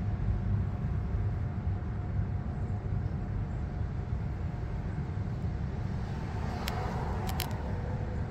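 Steady low outdoor background rumble, with a few short faint clicks about seven seconds in.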